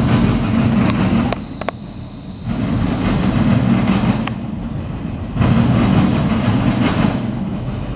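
Freight train autorack cars rolling past: a steady rumble of steel wheels on rail, easing off briefly about two seconds in, with several sharp clicks.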